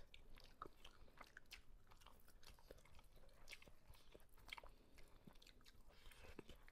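Faint eating sounds of two people chewing biryani eaten by hand, with many small scattered clicks.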